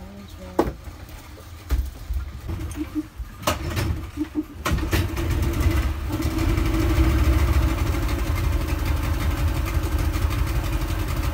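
A few knocks, then a 40-horsepower outboard motor starts about halfway through and runs steadily at idle.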